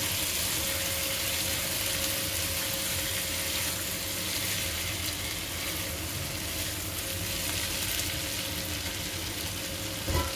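Beef meatballs, onion and tomato paste sizzling steadily in oil in a nonstick pan, stirred now and then with a silicone spatula.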